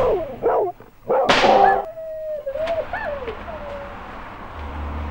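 A dog barking sharply a few times, then a thin, wavering whine for a second or two.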